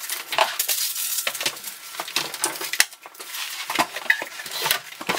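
Hands working at the base of a built-in washing machine: a busy run of irregular clicks, light knocks and rustling.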